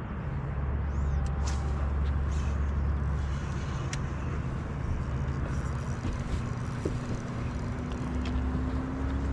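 Boat motor running with a steady low hum. A faint tone rises slowly in pitch over the last few seconds.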